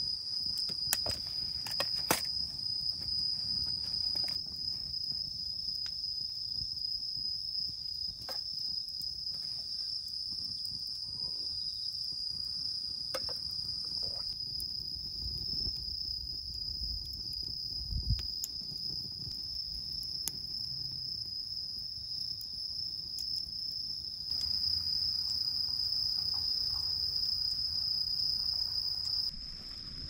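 Insects trilling in one steady, unbroken high-pitched note, with a few sharp clicks scattered through it.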